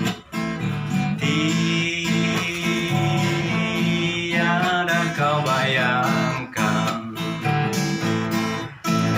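Acoustic guitar strumming chords in a song's instrumental introduction, with a melody line over it: a long held note, then a wavering melody about halfway through.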